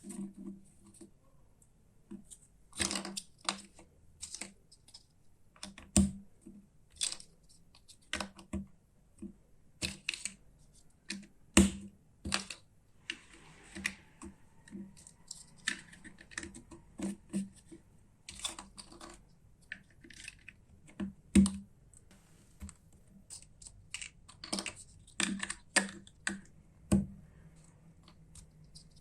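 Irregular light clicks and knocks of hard plastic toy parts being handled, with a few louder knocks among them.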